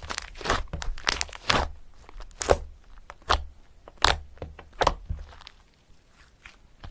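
Pen writing on paper: a run of short, irregular scratching strokes that eases off near the end.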